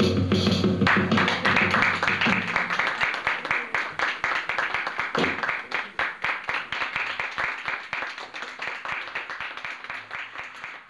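Audience applauding with many quick hand claps. The applause swells about a second in as the act's backing music ends, then slowly fades away.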